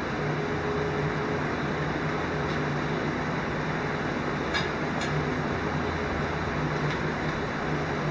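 Steady mechanical hum with a low drone, like a fan or motor running, with two faint clicks about halfway through.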